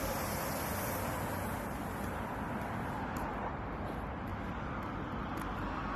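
Street traffic noise: a steady hiss and rumble of road traffic, with a few faint light ticks in the second half.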